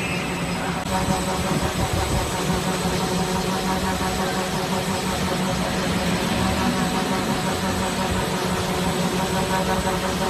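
Automatic slitting and rewinding machine running: a steady mechanical hum with several constant tones over an even rushing noise as its shafts turn and film is slit and wound into narrow rolls.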